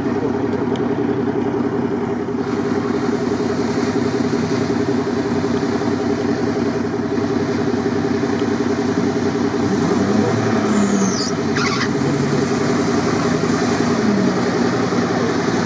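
A vehicle engine idling steadily close by, while a Toyota 4Runner pushes through flooded marsh, its engine note rising and falling over the rush of water. A brief high squeal comes about two-thirds of the way through.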